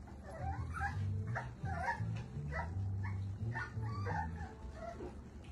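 Micro exotic bully puppies whimpering and squealing: many short, high, wavering cries, one after another and overlapping, over background music with a stepping bass line.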